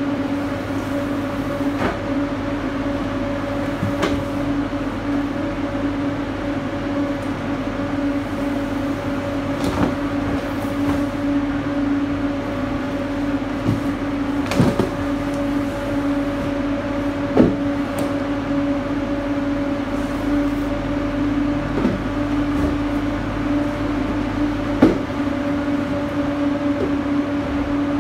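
Steady hum of a refrigerated truck's cooling unit running inside the insulated cargo box, with several sharp knocks as cardboard boxes are handled and set down.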